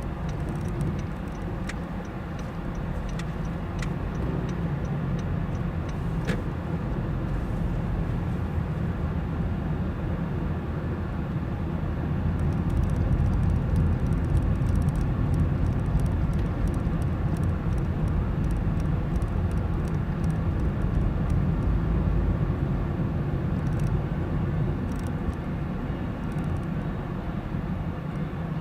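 A car driving, heard from inside the cabin: a steady low rumble of engine and tyres that grows louder for about ten seconds midway, with a few faint clicks in the first few seconds.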